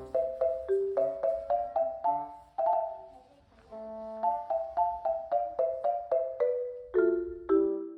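Background music: a light melody of struck, quickly fading mallet-percussion notes like a marimba or xylophone, pausing briefly in the middle.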